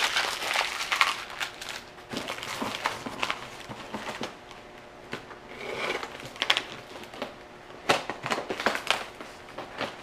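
Packing paper being crumpled and the cardboard box and plastic wrapping rustling and crinkling as a shipping box is unpacked, in irregular crackling bursts with a few louder rips and scrapes in the second half.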